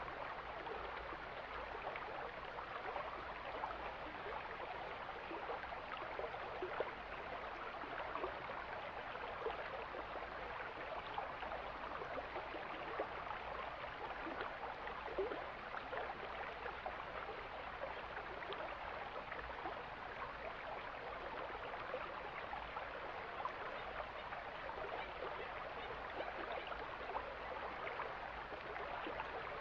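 Mountain stream flowing: a steady rush of water with many small splashes throughout.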